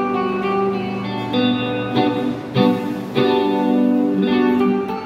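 Fender Stratocaster electric guitar played through a small amplifier: a single-note solo line of long, ringing notes, with a few sharp picked attacks partway through.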